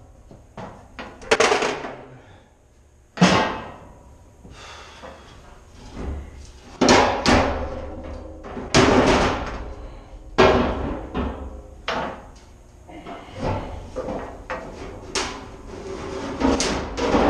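16-inch naval gun powder cans clanking and thudding as they are shifted and stacked by hand in a steel rack: a dozen or so irregular knocks, each ringing briefly.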